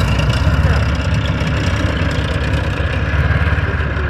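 Heavy armoured vehicle's diesel engine idling steadily, with a deep low-pitched running sound.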